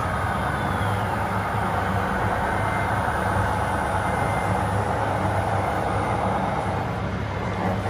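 Radio-controlled scale truck running, a steady truck-engine drone with a low hum.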